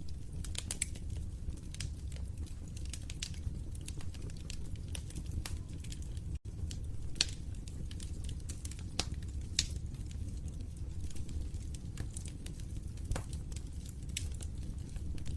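Fire crackling, with scattered sharp pops, a few louder than the rest, over a steady low rumble. The sound cuts out for an instant about six seconds in.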